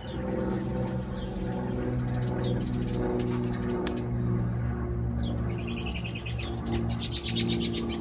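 Songbirds chirping, with two rapid trills of quickly repeated high notes, one about two-thirds of the way in and a louder one near the end, over a steady low drone of sustained tones.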